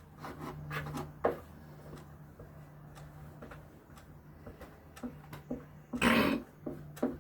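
Quiet handling noises of kitchen utensils: soft rubbing and scraping with scattered light clicks, over a faint steady hum. A louder short rush of noise comes about six seconds in.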